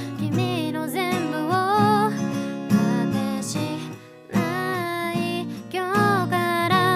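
A solo voice singing a pop ballad to strummed acoustic guitar, with a brief pause in the singing about four seconds in.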